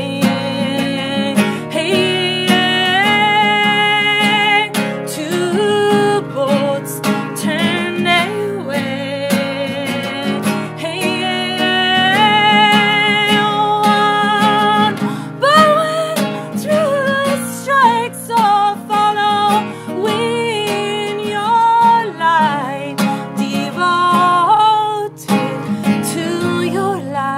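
Acoustic guitar strummed while a woman sings, her voice gliding between held notes.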